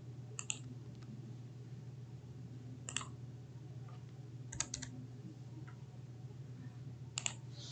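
Sparse computer keyboard and mouse clicks during copy-and-paste editing: two clicks about half a second in, one near the middle, a quick run of three, and two more near the end, over a faint low steady hum.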